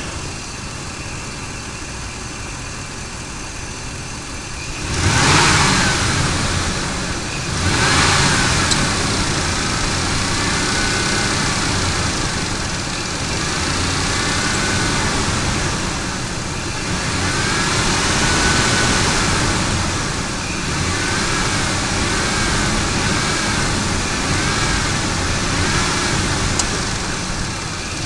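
Ford F-150's 5.4L Triton V8 idling steadily, then revved several times from about five seconds in. A whine rises and falls in pitch with each rev, which the owner puts down to a bad belt tensioner.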